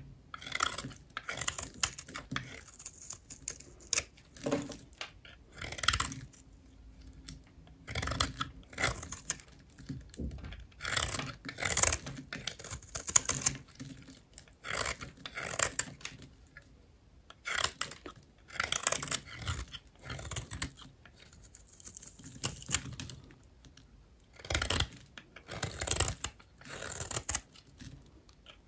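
Dry bars of soap being cut: a run of crisp, crackly crunching cuts, each a second or two long, with short pauses between them.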